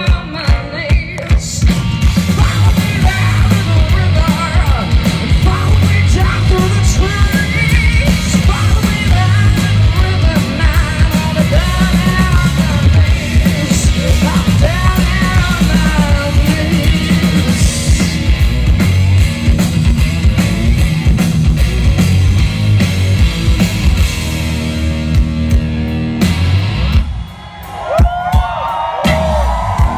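Rock band playing live, with female lead vocals over distorted electric guitar, bass guitar and a drum kit, heard loud from among the audience. Near the end the band drops out briefly and a lead guitar line comes in.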